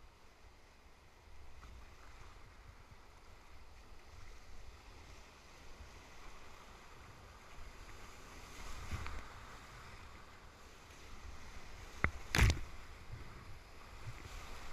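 Whitewater rapid rushing, a steady noise that slowly builds. Two sharp knocks land close together near the end.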